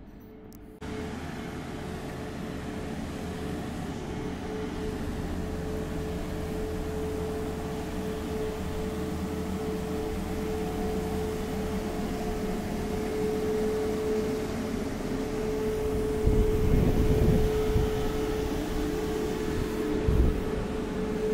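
A machine running steadily: a constant hum with one held mid-pitched tone over a low rumble. It starts abruptly about a second in and grows louder past the middle, with a few low thumps near the end.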